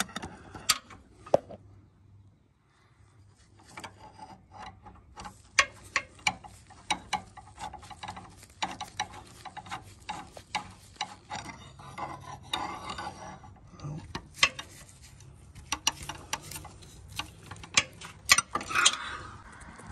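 A socket ratchet on a long extension clicking, with metal knocks of the extension against the underbody, as a starter mounting bolt is threaded in and run down. The clicks are irregular and dense from about four seconds in, after a short quiet spell near the start.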